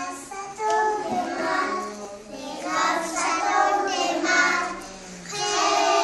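A class of four-year-old children singing together in a sing-song chant.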